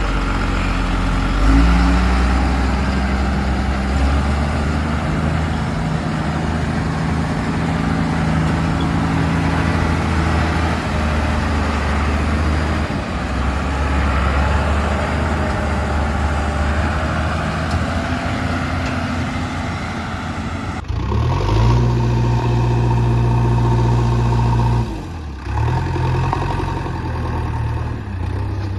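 Diesel engine of a JCB backhoe loader running, its note rising and falling. About three-quarters of the way through it changes abruptly to a different, steadier engine note.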